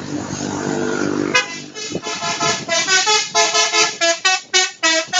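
Bus 'telolet' musical horn playing a quick melody of short notes that jump in pitch, starting about a second and a half in, over the noise of the bus.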